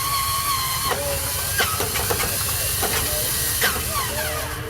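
Old piston propeller aircraft engine being started. A steady whine stops about a second in, and hissing with scattered clicks and short falling squeaks follows over a low rumble.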